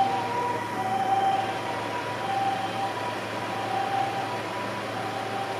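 Japanese ambulance siren sounding its two-tone hi-lo "pee-po" call, alternating steadily between the two notes and slowly fading as the ambulance drives away, over street traffic noise.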